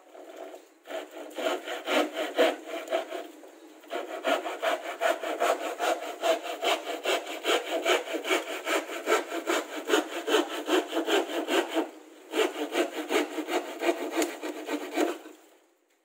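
Handsaw cutting through plywood in quick, even back-and-forth strokes, pausing briefly twice and stopping near the end as the strip is cut free.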